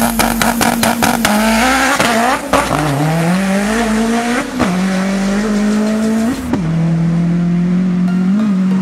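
Subaru Impreza drag car's EJ20 engine at full throttle down the strip. It starts held at high revs with a rapid crackle over it, then pulls hard, the pitch climbing and dropping at upshifts about 3, 4.5 and 6.5 seconds in.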